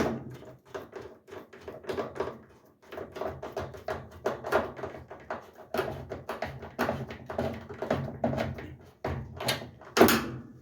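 Screws being driven by hand with a Phillips screwdriver into a washer's panel: a run of irregular clicks, scrapes and small knocks, with a louder knock near the end.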